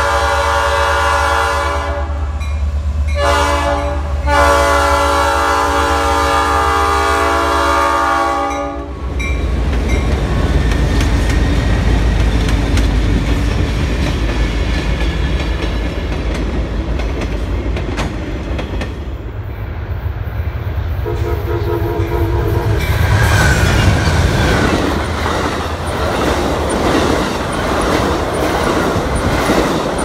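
Diesel locomotive air horn sounding a long chord, broken briefly twice in the first few seconds and cutting off about nine seconds in. After that comes the steady rumble and wheel clatter of the train's cars rolling past.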